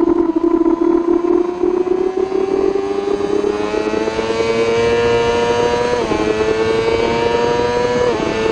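1000 cc race superbike engine heard from onboard at full race pace: its pitch sags a little through a leaned corner, then climbs steadily as the throttle opens. Two quick upshifts, about six and eight seconds in, each drop the pitch briefly before it climbs again, over a rising rush of wind.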